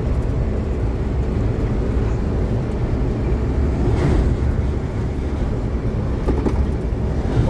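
Steady low rumble of a vehicle driving at speed on an asphalt highway: engine and tyre noise, swelling briefly about four seconds in.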